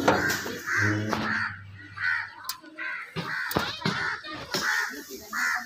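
Crows cawing over and over, short harsh calls at about two a second.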